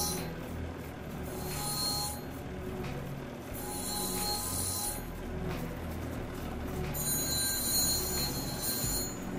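Cabbing machine running with a fire opal held against its spinning grinding wheel: a steady low motor hum, with a high-pitched ringing whine that comes and goes every second or two as the stone is worked on the wheel.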